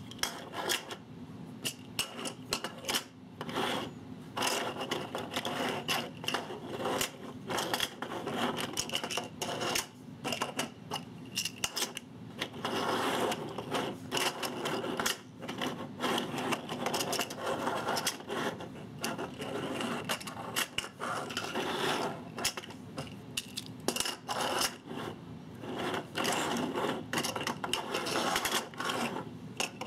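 3D-printed plastic dungeon tiles with magnetic bases clicking and clacking as they are fitted together, pulled apart and slid on a wooden tabletop: a busy, irregular run of small clicks and knocks with some scraping.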